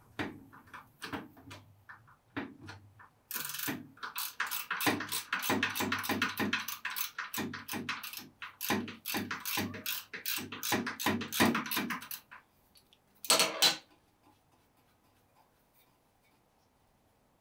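Socket ratchet wrench clicking in quick runs for about nine seconds as fasteners on the jointer table's spring block are turned, then a short metallic rattle.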